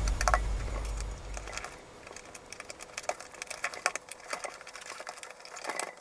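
Cardboard jigsaw puzzle pieces being fitted and pressed into place on a table: a scattered run of light clicks and taps.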